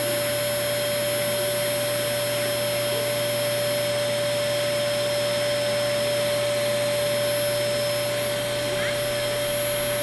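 Vacuum cleaner running steadily, a constant rushing noise with a steady whine.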